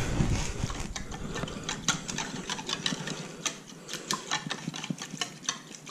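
Wire whisk beating thick achiote paste into a citrus marinade in a bowl, its wires clicking rapidly and unevenly against the bowl.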